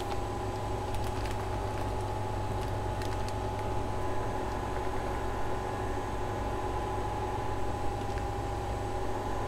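Steady mechanical hum of room equipment, a low drone with a few steady tones held at an even level. Faint crinkles and clicks of a plastic grow bag and of mushroom clusters being handled come a few times over it.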